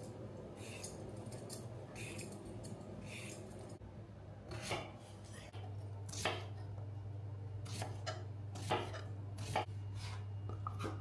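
A hand vegetable peeler scrapes strips off a cucumber. From about four seconds in, a knife slices the cucumber on a wooden chopping board, the blade knocking sharply on the board about five times. A steady low hum comes in about halfway through.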